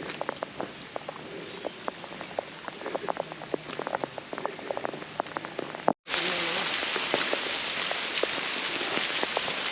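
Steady rain, with single drops ticking sharply close by over the hiss. About six seconds in the sound cuts and comes back as louder, denser rain.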